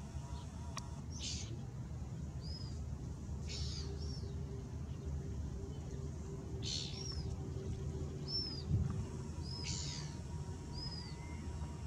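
Shorebirds calling from a flock of bar-tailed godwits and pied stilts: four sharp, high calls about three seconds apart, with softer short high notes in between. A steady low rumble lies underneath.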